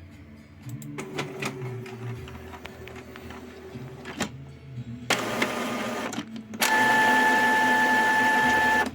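Epson L3150 inkjet printer running its mechanism: a motor hum with clicks, then a louder stretch, then the loudest part, a steady run with a high whine that stops sharply near the end.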